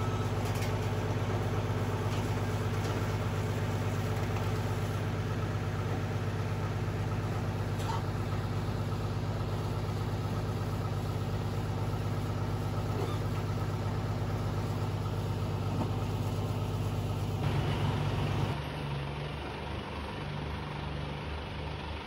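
Livestock truck's engine idling steadily with a low, even hum; about three-quarters of the way through the sound drops and turns uneven.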